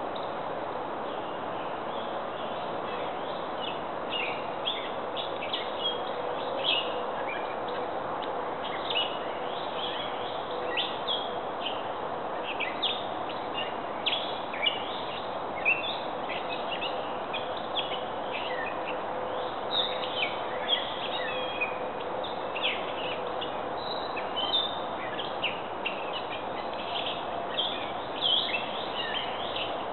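Small birds chirping in quick, repeated short notes, several a second, over a steady background hiss.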